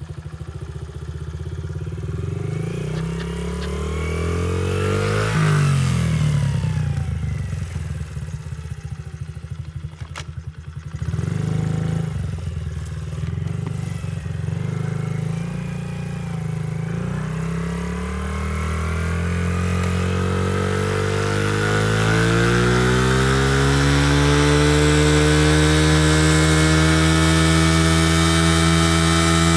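Honda CRF50F pit bike's small four-stroke single-cylinder engine revving up and down as the bike is ridden. Its revs drop about ten seconds in, then climb steadily and hold high for the last several seconds.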